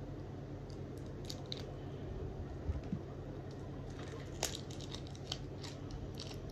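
Hands working at a plastic-bagged product that is hard to open: light plastic crinkling with scattered clicks and taps, a sharp click about four seconds in, over a steady low hum.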